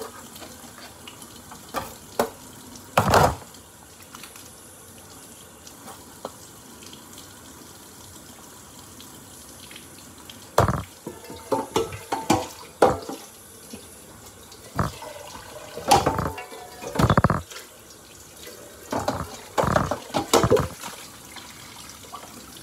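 Kitchen work sounds: a steady rush of water like a running tap, broken by a string of sharp clattering knocks of a metal pot and dishes being handled, most of them in the second half.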